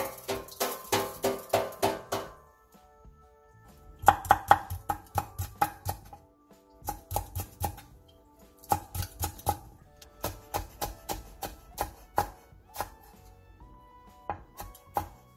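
Chef's knife chopping cheongyang chili peppers on an end-grain wooden cutting board: quick sharp knocks, about five a second, in runs with short pauses between them. Soft background music plays underneath.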